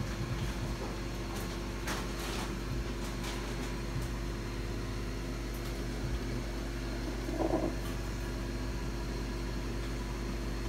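Steady low machine hum, with a few faint clicks and a short faint sound about seven and a half seconds in.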